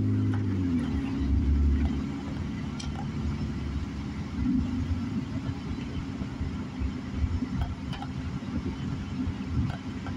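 Car engine heard from inside the cabin, its note dropping in the first second or two as the car eases off, then a low rumble of engine and tyres on the wet road. A few faint clicks sound now and then.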